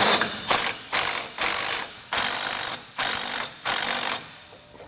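Milwaukee Fuel cordless impact wrench with a 19 mm socket, driving and tightening bolts in about seven short bursts, the last ending a little after four seconds in.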